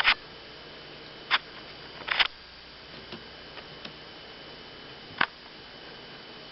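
Four short, sharp taps and clicks, spaced a second or more apart, as a cat bats and grabs at a feather wand toy, over a faint steady hum.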